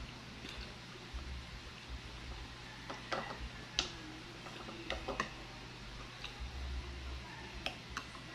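Wooden spoon and fork clicking sharply against a bowl now and then, with soft chewing and mouth sounds of eating in between, over a steady low hum.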